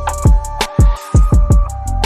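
Background music with a steady electronic drum beat, deep bass and a synth melody.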